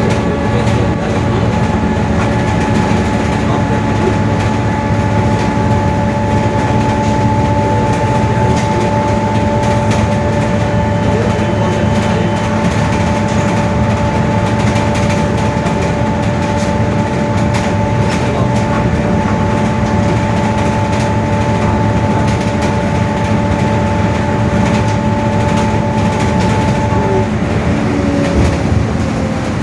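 Mercedes-Benz OF-1721 bus's rear differential droning very loudly, a steady gear whine of several held tones over the low rumble of the running bus. Near the end the whine fades and falls in pitch.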